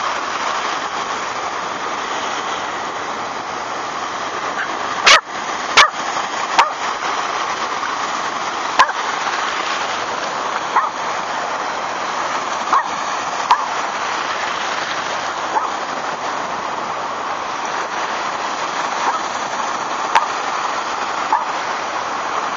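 Shallow surf washing steadily around a Yorkshire terrier, who gives about a dozen short, high yaps, spaced a second or more apart, from about five seconds in.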